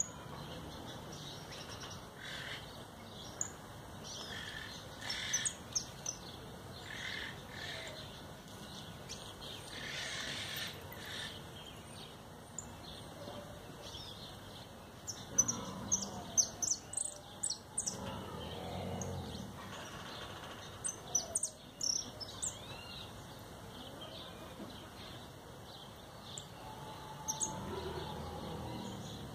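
Caged jilguero (a finch) singing in several bursts of quick, high chirping and twittering notes, with pauses between the phrases.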